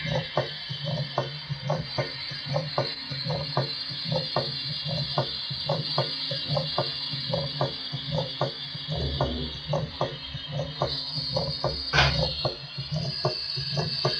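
Recorded heart sounds of typical mitral stenosis: a regular beat of sharp knocking sounds, the loud first heart sound and opening snap, each followed by a low diastolic murmur, over a steady hiss. It is likened to a rock falling down a mountain.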